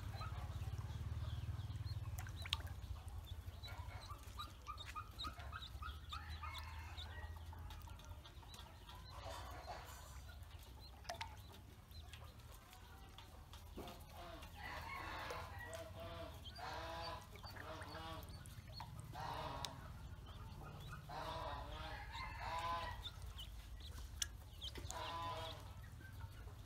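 Ducklings peeping in runs of quick, repeated calls, heaviest in the second half, over a steady low rumble.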